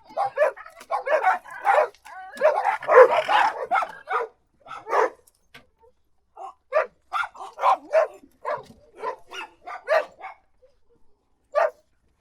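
Dog barking in short, repeated barks, with a dense flurry of overlapping barks about three seconds in. Then comes a brief pause, a steady run of single barks, another pause and one last bark near the end.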